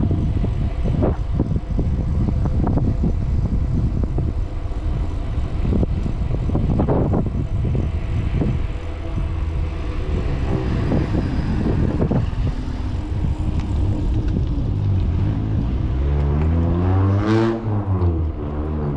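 Wind on the microphone and road rumble from riding a bicycle along a road. About sixteen seconds in, a motor vehicle passes close by, its engine note rising and then falling as it goes past.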